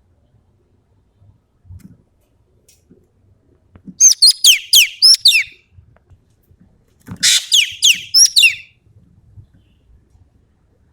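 Ekek keling (common green magpie) singing in two bursts, about four seconds in and again about seven seconds in. Each burst is a quick run of sharp, high notes that fall steeply in pitch.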